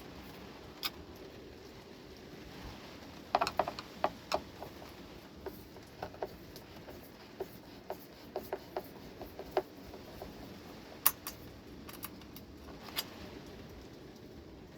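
Irregular sharp clicks and small knocks of hand tools and screws against a bookshelf speaker's cabinet and woofer frame as the woofer is worked loose: a quick cluster a few seconds in, a run of small ticks, then a few single sharper clicks near the end.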